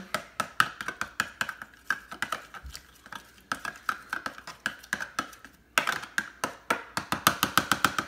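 Metal spoon beating a raw egg in a plastic microwave egg cooker: a run of quick clicks and taps against the cup, coming fastest and loudest in the last two seconds.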